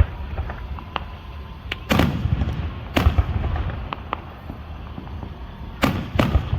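Fireworks bursting overhead in a string of sharp booms over a low rumble. The two biggest bangs come about two and three seconds in, smaller pops fall between them, and two more booms follow close together near the end.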